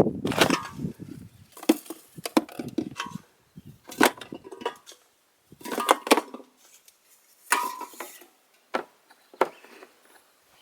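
Irregular knocks and cracks, like wood or debris being stepped on or handled, about a dozen spread unevenly with quiet gaps between.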